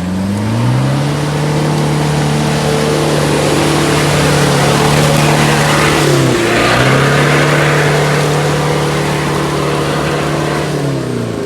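Off-road SUV engine held at high revs, dipping sharply about six seconds in and climbing back up, then falling off near the end, with a rushing hiss peaking midway. The vehicle is stuck in a rut and trying to drive itself out.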